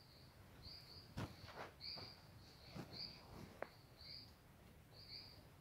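Footsteps crunching on dry leaf litter, a few irregular steps in the first half with a brief sharp snap about three and a half seconds in. Short high chirps from a small creature repeat about once a second in the background.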